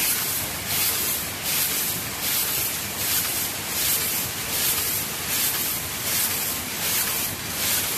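Vacuum packaging and double-cylinder filling machinery running: a steady hiss that swells in regular pulses of air about every three-quarters of a second.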